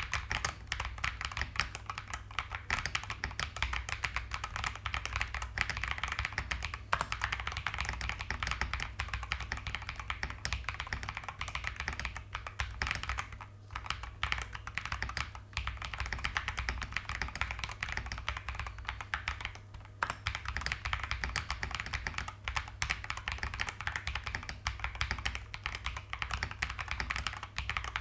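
Continuous fast typing on a Feker JJK84 75% mechanical keyboard with Ajazz Diced Fruit Banana tactile switches and SA profile keycaps, the case tape-modded and foamed. The typing pauses briefly about 13 and 20 seconds in.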